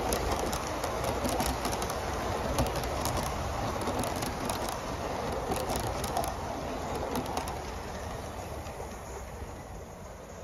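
Gauge 1 live steam model train, an Aster B1 locomotive with its coaches, running along a garden track: a steady rolling noise from the wheels with sharp clicks. The sound fades over the last few seconds as the train moves away.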